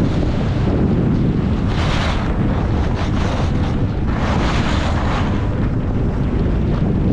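Wind rushing over a GoPro's microphone while skiing downhill, a loud steady rumble, with two hissing swishes of ski edges scraping the snow on turns, about two seconds in and again around four to five seconds.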